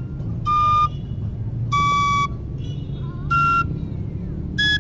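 A small high-pitched flute playing a soft dance melody in separate held notes, about four in all with a short rising slur between them, over a steady low rumble.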